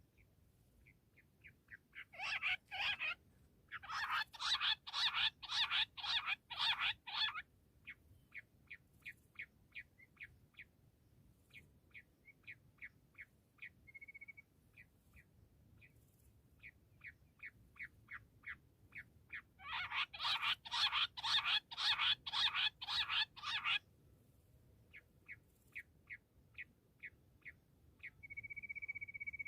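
Bush quail calling in long series of quick, evenly repeated notes: soft runs swelling into loud, dense runs, first about two seconds in and again about twenty seconds in. Near the end a steady high tone begins.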